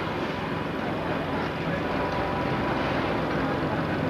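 Vintage electric street tram approaching slowly along street-running track, a steady running and rail noise that grows gradually louder as it nears.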